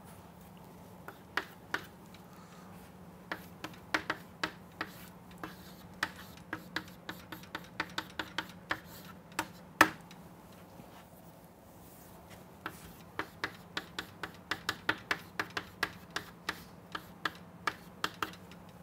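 Chalk tapping and clicking on a chalkboard as equations are written: quick, irregular runs of sharp taps, with a pause about ten seconds in, over a faint steady low hum.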